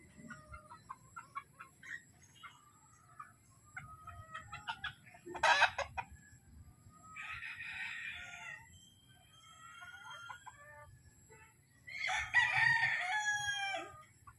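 Caged gamefowl roosters clucking and crowing, with a hoarse crow around the middle and a loud crow near the end. A sharp, loud sound comes about five seconds in.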